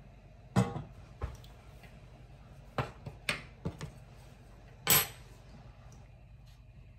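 Kitchen utensils and cookware knocking and clinking: about seven separate knocks, the loudest about half a second in and again just before five seconds.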